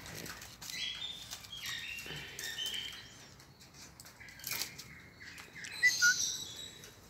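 French bulldog nosing and scuffing at a strip of wood on concrete: scratchy scraping and shuffling, a sharp click about four and a half seconds in, and two short chirps around six seconds in.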